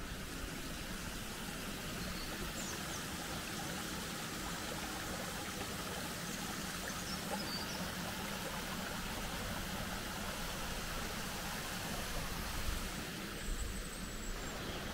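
Steady rushing of a shallow river running over rocks, with a low rumble underneath.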